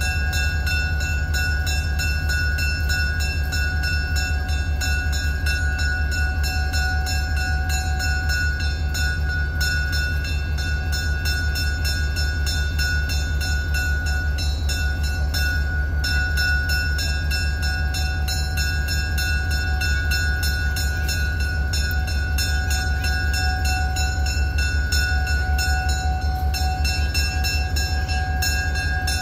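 EMD GP35 diesel-electric locomotive with a turbocharged 16-cylinder engine, running steadily while standing. It makes a deep, evenly pulsing throb with a steady high whine above it.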